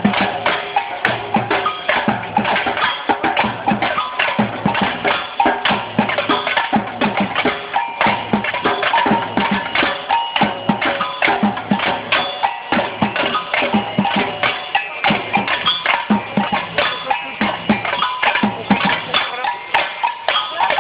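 Batucada samba percussion band playing a steady, driving rhythm: deep bass-drum beats under dense, fast higher drum and bell strikes.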